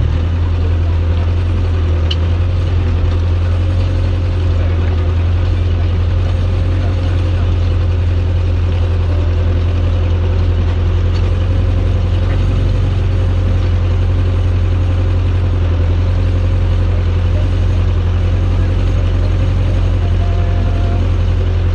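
Ursus 902 tractor's diesel engine running steadily under load as it pulls a mounted plough through the soil, a constant low hum with no change in pace.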